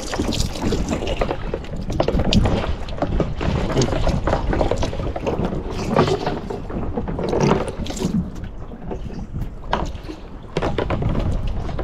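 Wind buffeting the microphone and water sloshing and splashing against a small boat's hull at sea, with scattered knocks and slaps; it swells and eases, dipping a little near the end.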